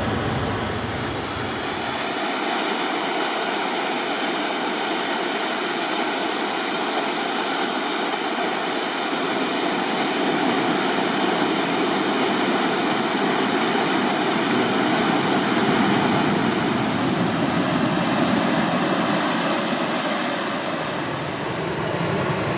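Waterfall rushing steadily, a loud, even sound of falling water from a river running high after heavy rain.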